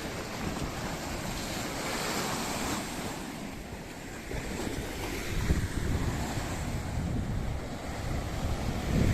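Sea waves washing onto the beach, a hissing swell of surf about two seconds in, with wind gusting on the microphone in low rumbles from about halfway.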